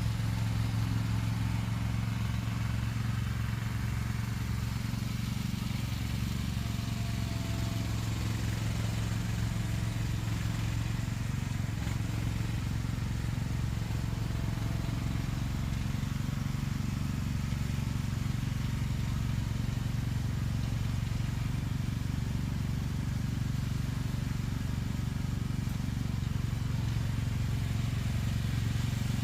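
A vehicle engine running steadily at low revs, a constant deep hum with no change in pitch.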